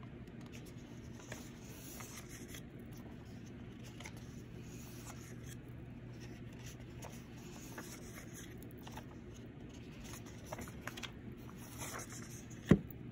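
Sheets of patterned craft paper being handled, giving faint rustles and light ticks over a low steady hum. One sharp knock near the end.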